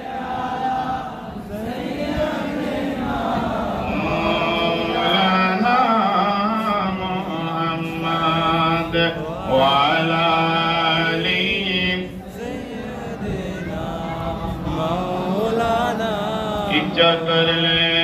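A man chanting Islamic devotional salawat (durood) in long, held, wavering notes with short breaks between phrases.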